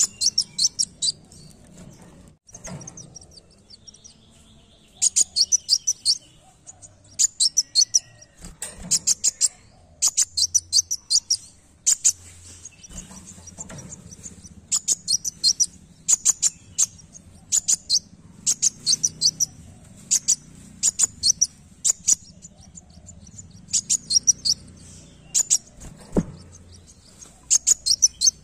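Male sunbird singing: bursts of rapid, high-pitched chirps that come again every second or two, with a longer pause a few seconds in.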